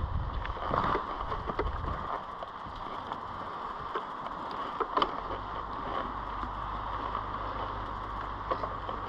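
Mountain bike rolling over a dirt and gravel trail: steady rolling noise from the tyres and frame, with scattered sharp clicks and knocks as the bike rattles over the ground. A heavy low rumble at the start eases off about two seconds in.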